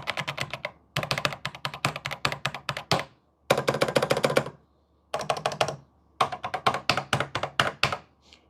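Typing on a Commodore 64 Ultimate keyboard: fast runs of key clicks in several bursts of one to two seconds, with short pauses between them.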